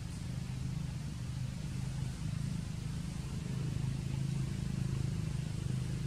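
A low, steady engine drone, a little stronger from about halfway through.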